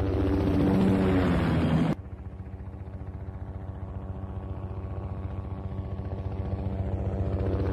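Helicopter flying by, its rotor blades beating rapidly and evenly. The sound swells and falls in pitch, cuts off abruptly about two seconds in, and comes back quieter, then slowly grows louder again as the helicopter approaches.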